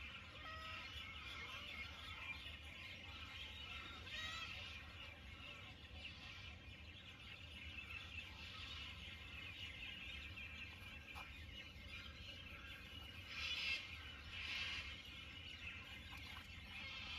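Faint background birdsong, many small overlapping chirps, over a low steady outdoor rumble. Two brief louder hissy noises come a little past three-quarters of the way through.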